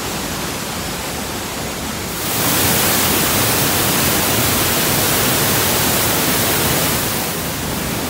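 Steady rushing roar of a waterfall pouring over rock, growing louder about two seconds in and easing back near the end.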